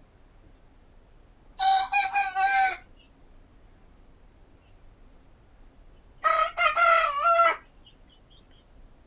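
Roosters crowing in turn: two crows, each just over a second long, about four and a half seconds apart.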